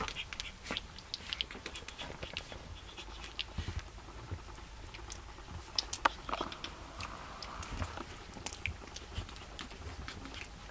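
A litter of young puppies mouthing and chewing at each other and scrabbling on soft bedding: irregular small wet clicks, licks and taps, with the sharpest click about six seconds in.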